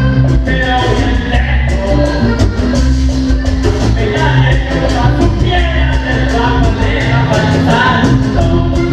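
Vallenato band playing live: an accordion melody over a fast, steady percussion beat.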